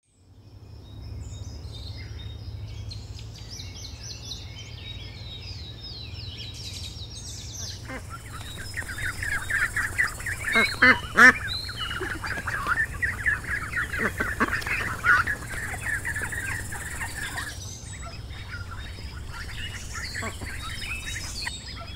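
Newly hatched mallard ducklings peeping rapidly in a dense chorus through the middle stretch, with a few louder, sharper calls about halfway through. Higher chirping comes before the peeping, and a steady low hum lies underneath.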